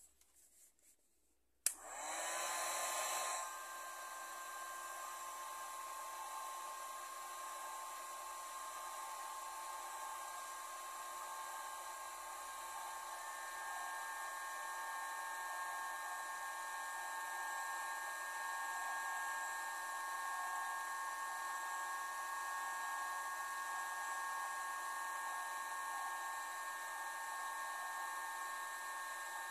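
Hot-air blower switched on with a click about two seconds in. Its fan spins up with a short louder rush, then runs steadily with a whine and hiss.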